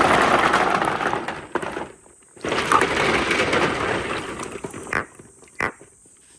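Marbles rolling and rattling down a handmade marble-run slope. The noise dies away about two seconds in, comes back as the marbles run on and fades, and near the end there are two sharp clicks.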